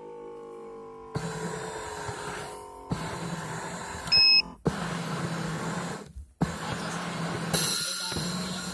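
Electric foot massager running, its motor and kneading rollers humming steadily, heard from inside the machine. A short electronic beep sounds about four seconds in, and the hum breaks off briefly a few times.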